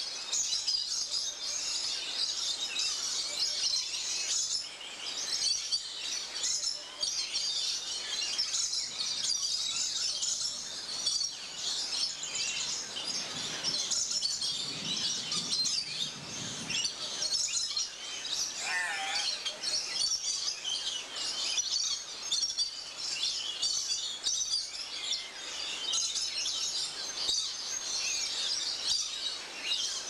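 A dense chorus of many birds chirping and calling high-pitched, steady throughout, with a wavering whistled call standing out about two-thirds of the way through.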